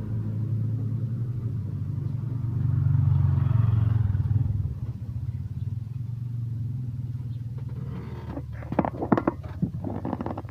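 A motorcycle engine running, a steady low hum that swells about two and a half seconds in and fades after about four and a half seconds. Near the end, a quick run of sharp clatters from a metal utensil against the frying pan.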